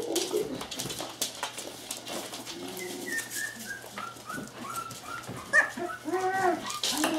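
Springer spaniel puppies squeaking and whining in short high notes as they play, with a few louder yelps near the end. Scattered clicks and rustles run underneath: claws on the wooden floor and newspaper.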